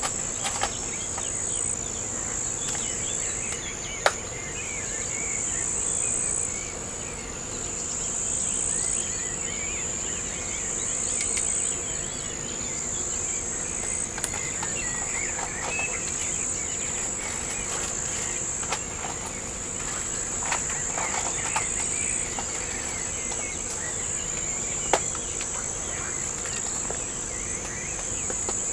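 A steady, high-pitched chorus of crickets or similar insects, with faint bird chirps and a few sharp clicks, the loudest about four seconds in.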